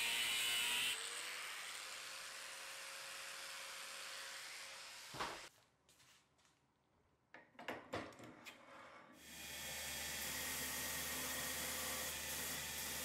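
An angle grinder cutting a steel bar stops about a second in and leaves a steady hiss. Midway there are a few sharp knocks and clicks in a quiet stretch. In the last third a belt grinder runs with a steady low hum and hiss as a Damascus steel blade, clamped in a grinding jig, is ground against its contact wheel.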